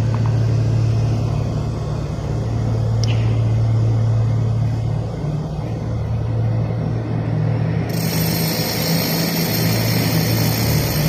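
Steady low hum of a running motor, with one short high squeak about three seconds in.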